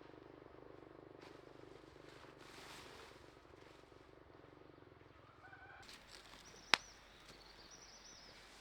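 A steady low machine hum that cuts off suddenly about six seconds in, leaving birds chirping and one sharp click soon after.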